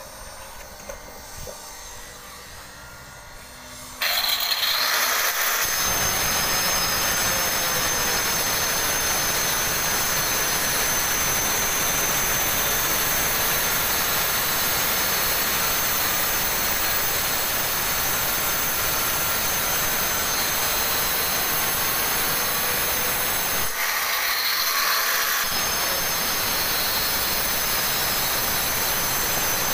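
Handheld electric stone cutter starting up suddenly about four seconds in and cutting through a granite slab: a loud, steady grinding hiss with a high whine over it.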